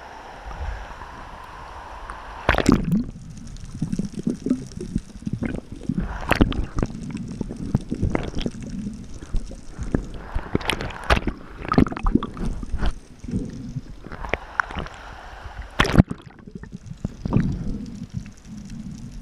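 Water sloshing and gurgling around a camera in the water, with many irregular knocks and splashes.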